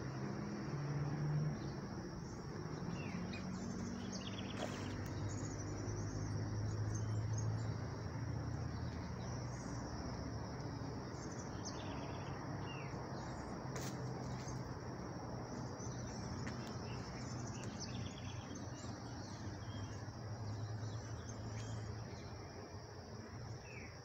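Outdoor ambience of a steady, high-pitched insect drone, with scattered short bird chirps and a low, steady hum underneath.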